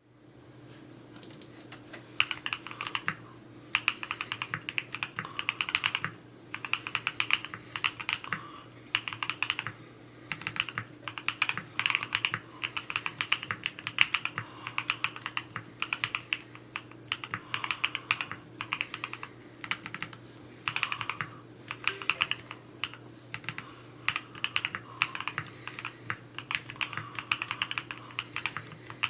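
Typing on a Neo65 Cu custom mechanical keyboard: fast runs of keystrokes in groups of a second or two with short pauses between them, over a faint steady hum.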